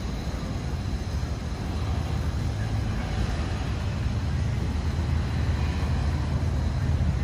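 City street traffic at a busy intersection: a steady low rumble of cars and road noise.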